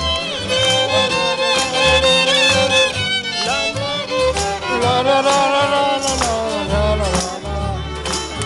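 Jug band music with a fiddle carrying the melody up close, over strummed strings and low bass notes in a steady beat.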